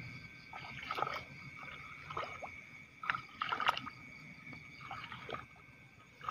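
A hand sloshing and groping in shallow muddy rice-paddy water, with a few short irregular splashes and squelches.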